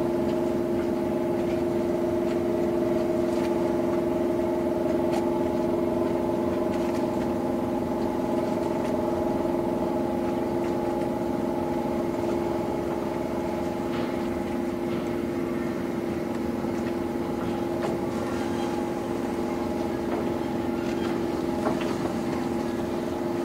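Boat engine running at a steady speed, a constant drone with a few steady humming tones over a noisy rumble.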